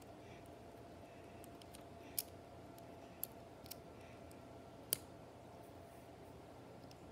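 Plastic Lego bricks clicking as they are pressed and fitted together by hand: four short sharp clicks, the loudest about five seconds in, over a faint steady hum.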